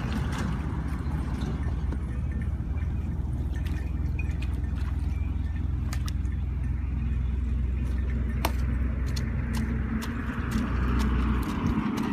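A steady low rumble underlies small wet splashes and clicks of mud and water being worked by hand around a dug pit with a plastic basin set into it. The rumble changes near the end as hoe work begins.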